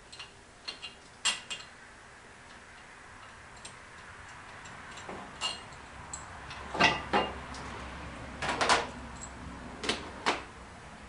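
Irregular metallic clicks and clinks of hand tools and fittings being worked in a car's engine bay while an intercooler pipe is loosened, with a quick run of them in the second half.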